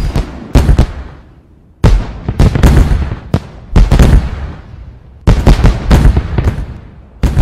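Fireworks exploding: a string of sharp bangs in clusters of several at a time, each with a low rumbling tail, with short lulls between the clusters.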